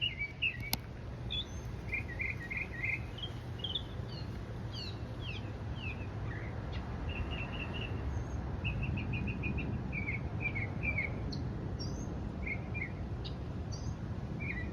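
A songbird singing steadily, phrase after phrase of quick repeated high chirps and short down-slurred whistles with brief pauses between, over a steady low background rumble.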